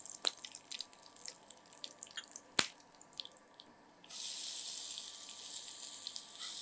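Tempering in hot oil in a frying pan, crackling with scattered pops, one louder than the rest. About four seconds in, a steady sizzle starts suddenly as the ground coconut paste goes into the hot oil.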